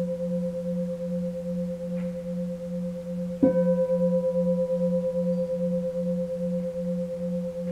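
Large standing bowl bell (keisu) struck once with a wooden striker about three and a half seconds in, ringing on with a long sustained tone. A low hum throbs about twice a second under a clearer higher ring.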